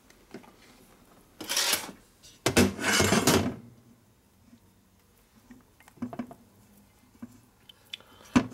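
Aluminium Sportster crankcase half being turned over and handled on a steel workbench, scraping and clattering in two bursts, a short one about a second and a half in and a longer, louder one at about two and a half seconds, then a few light clicks.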